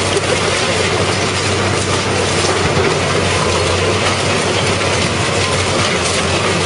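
Car shredder tearing up scrap cars: a continuous loud metal clatter and grinding over a steady low hum.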